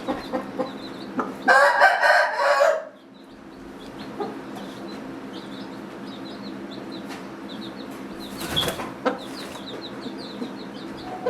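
A rooster crows once, starting about a second and a half in, over a steady low hum, with faint high chirps throughout.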